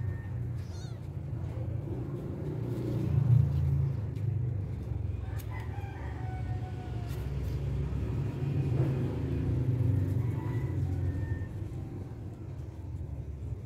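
Chickens clucking and a rooster crowing over a steady low rumble, loudest about three seconds in.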